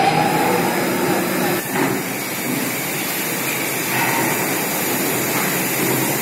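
Steady, loud running noise of AAC block plant machinery, with a motor whine rising at the start.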